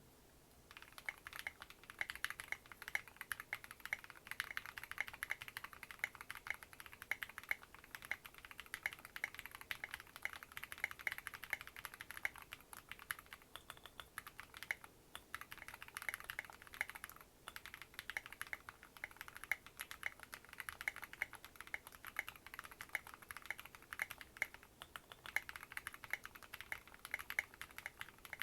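Typing on an OwLab Voice65 custom mechanical keyboard with lubed Gateron Ink Black V2 linear switches, an aluminium plate, foam-dampened case and SA-profile keycaps. A fast, steady stream of keystrokes starts about a second in and runs with a few brief pauses.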